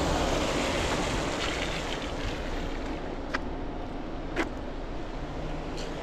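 Hiss of car traffic on a wet road, with wind on the microphone. Three sharp ticks come around the middle, the second the loudest.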